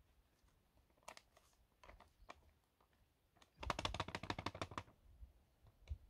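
Plastic dry-food pouch being handled: a few scattered clicks, then a rapid run of clicks lasting about a second as its zip seal is pressed shut so the meal can soak in the hot water.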